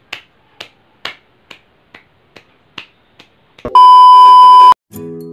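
Fingers snapping, about two snaps a second, eight times. Then a loud steady test-tone beep of about a second, the kind that sounds over a colour-bar screen, and music begins just before the end.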